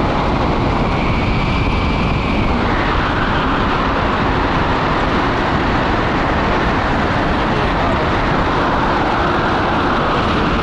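Steady wind rushing over the microphone of a pole-mounted camera in flight under a tandem paraglider.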